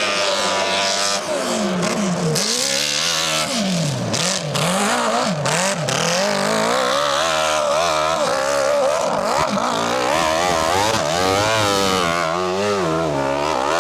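Hero Splendor's small single-cylinder four-stroke motorcycle engine revving up and down over and over as it is ridden over rough field ground, with occasional clatter.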